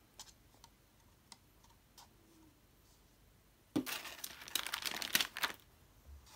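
Thin plastic bottle crinkling and crackling as cotton balls are pressed into it, a dense run of crinkles starting about four seconds in and lasting under two seconds, after a few faint light taps.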